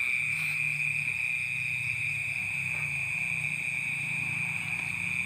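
Steady night chorus of crickets: one unbroken shrill tone, with a low drone underneath.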